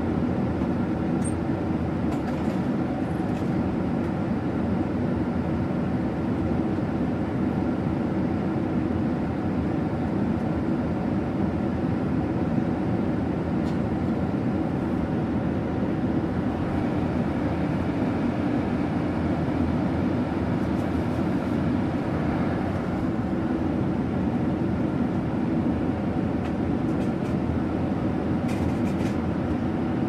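Airliner cabin noise in flight: a steady low drone of engines and rushing air. A faint higher tone comes in around the middle, and there are a few light ticks near the end.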